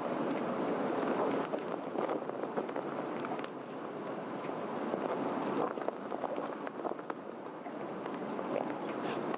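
Campfire of a Swedish torch, a cedar log cut with a cross-shaped slot, burning on a fire stand: a steady rush of flames with scattered small crackles and pops throughout.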